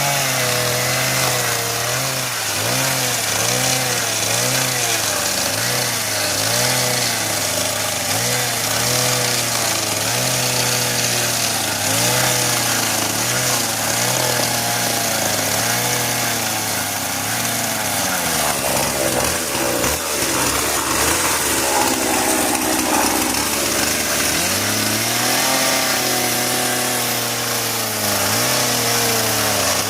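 Petrol chainsaw cutting into a house's wall, its engine pitch rising and dipping over and over as the chain bites and frees. A little past the middle it sinks lower and runs ragged for a few seconds, then climbs back up.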